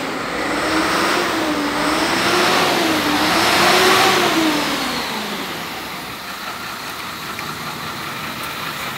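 Diesel engine of a light cab-over truck running and being revved, its pitch rising and falling several times over the first few seconds, then fading to a steady running sound about five seconds in.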